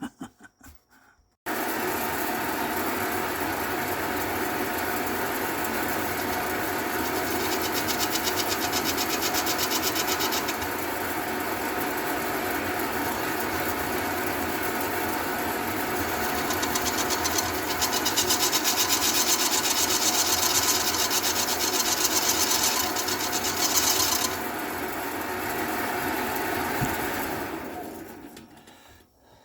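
A small electric power tool in a cue-repair shop is switched on and runs steadily. It is louder and rougher in two stretches, as if cutting, and winds down near the end.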